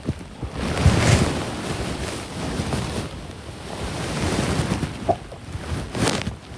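A woman snoring in her sleep: a noisy breath swells up with a low rattling flutter about a second in, followed by slower breathy swells.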